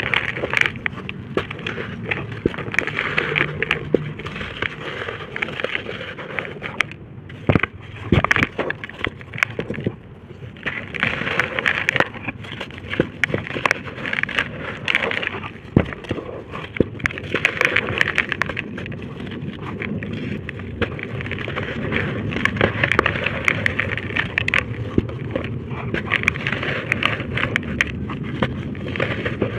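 Dry red brick-dirt shapes being crumbled and crushed into powder: a continuous gritty crunching dense with sharp little cracks and crackles, with a few louder snaps.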